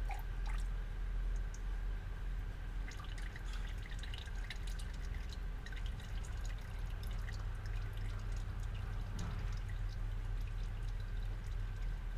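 Engine oil dripping and trickling from a loosened oil filter, irregular drips landing in quick succession over a steady low hum.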